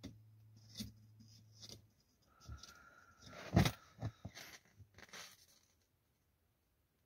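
A few short clicks and knocks from hands working the controls in a car cabin, the loudest about three and a half seconds in, over a faint steady hum that stops about two seconds in.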